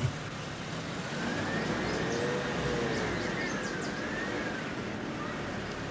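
A siren wailing, its pitch slowly rising and falling a few times, over steady road noise.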